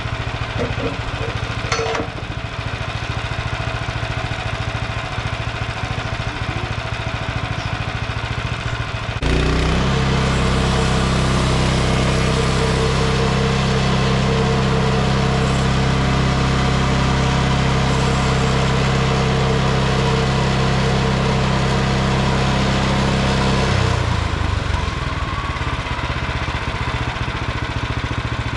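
Small gasoline engine of a bandsaw mill idling, then throttled up about nine seconds in. It runs steadily at the higher speed for about fifteen seconds, then drops back to idle.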